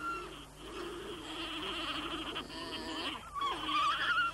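Alpacas humming: soft, wavering pitched calls, with a steady high buzz behind them.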